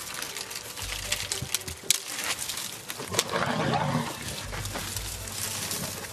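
Dry branches and twigs cracking, snapping and rustling as African elephants push and shove through the brush around a knobthorn tree, with a short, low elephant vocalisation about three seconds in.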